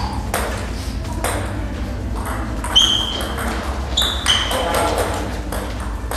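Table tennis rally: a celluloid ball clicking off the players' bats and the table at irregular intervals, with a few short ringing pings about three and four seconds in.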